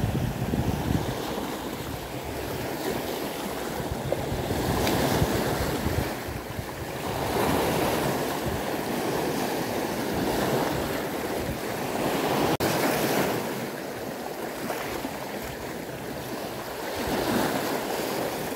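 Small sea waves breaking on a rocky shore and washing back over the stones, surging every two to three seconds. Wind buffets the microphone at the start.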